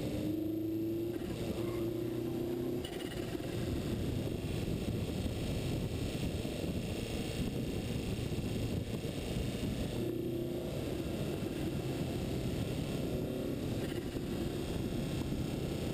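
Wind buffeting the microphone of a camera moving fast down a mountain road: a steady, low, rushing rumble. Faint low hums come in briefly near the start and again about ten seconds in.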